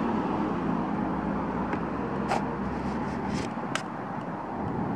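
Steady city traffic hum, with a few sharp clicks and a short rustle from handling a Polaroid 4x5 instant film holder on the back of a large-format camera as the film envelope is pulled up. The low rumble of traffic fades about two-thirds of the way through.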